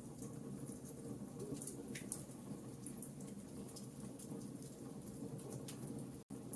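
Fireplace fire crackling: a steady low rumble of flames with scattered sharp pops and crackles, and a split-second dropout near the end.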